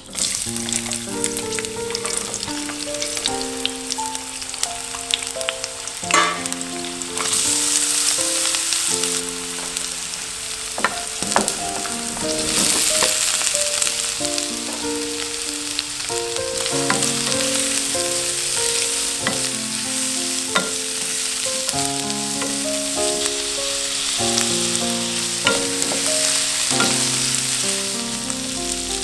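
Pork chunks, lemongrass, garlic and shallot sizzling in hot oil in a ceramic-coated wok while they are stirred, with a few sharp clicks early on as ingredients go in. The sizzle grows louder about seven seconds in and again around twelve seconds. A gentle background melody plays throughout.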